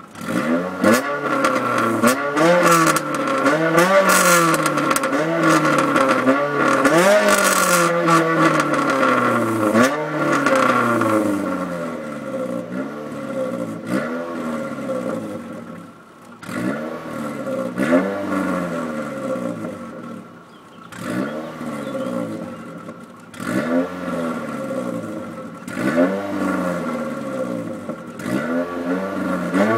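Renault Clio 197's 2.0-litre four-cylinder engine revved repeatedly from idle through an exhaust with the decat pipe and centre silencer removed, heard at the tailpipes. Quick back-to-back revs for the first ten seconds or so, then single blips about every two seconds.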